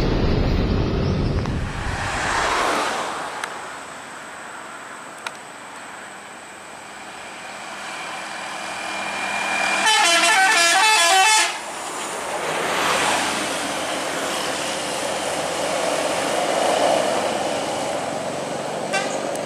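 Bus engine and tyre noise swelling as it passes, with a warbling multi-tone bus horn sounded for about a second and a half midway.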